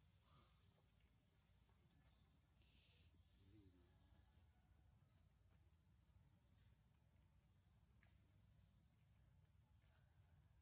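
Near silence with faint insects buzzing steadily in the background, a short chirp-like accent repeating about every second and a half. There is one brief hiss a little under three seconds in.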